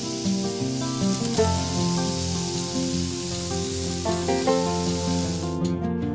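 Onion halves and fresh ginger sizzling as they sear in a hot Instant Pot's stainless steel inner pot, under background music with plucked notes. The sizzle cuts off abruptly near the end.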